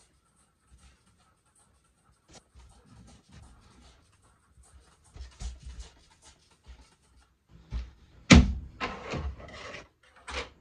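Handling sounds as spot treatment goes on the carpet: a trigger spray bottle spritzing in a few short hissy bursts, among rubbing noises. The loudest sound is a sharp scraping rub about eight seconds in, followed by a second of rough rubbing.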